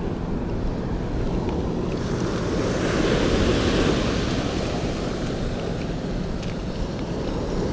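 Ocean surf breaking and washing up the beach, with wind buffeting the microphone. The wash swells about three seconds in and again near the end.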